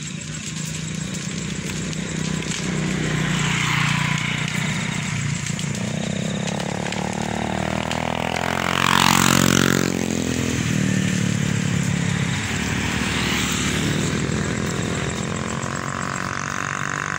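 Motorcycle engines running past on the road. One passes close about nine seconds in, the loudest moment.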